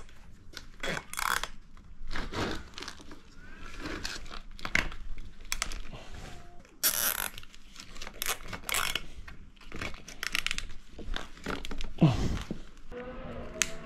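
Plastic milk crates and weights being handled as the weights are fitted inside a craypot: irregular scraping, rattling and knocking, with one heavier thump near the end.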